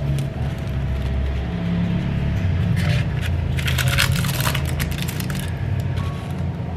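Background music with a steady low beat, over a cluster of short scraping and clicking handling noises about halfway through, as a cake slice is lifted and set down on a plastic cake board.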